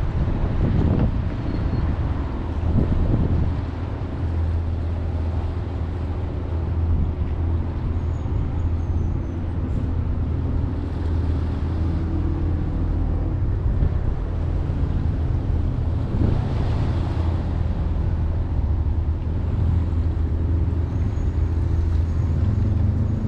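A steady low engine rumble, unbroken throughout, over a haze of noise.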